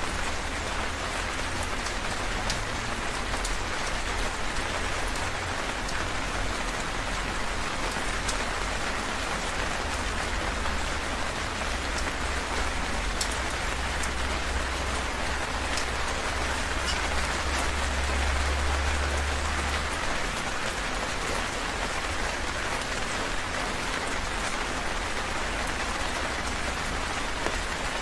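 Heavy rain falling steadily, a dense hiss with scattered individual drop ticks. A deep low rumble swells in the middle and fades away again.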